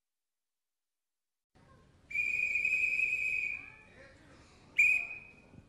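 A whistle blown twice: one long, steady blast of about a second and a half, then about a second later a short, sharp blast that is the loudest thing here.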